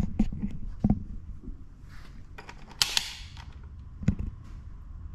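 Handling noises: a quick run of sharp clicks and knocks in the first second, a brief rustle just before three seconds in, and one more sharp click with a dull knock a little after four seconds. The engine is not running.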